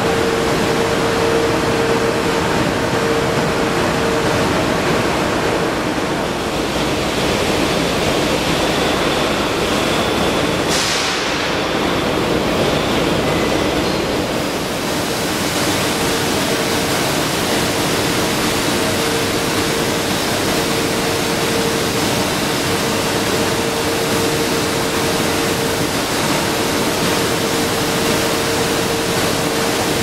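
Loud, steady industrial noise of a foundry hall during a ladle move by overhead crane: a constant hiss-like roar with a steady humming tone running under it.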